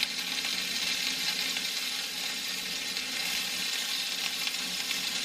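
Food sizzling steadily in a frying pan: an even, unbroken hiss.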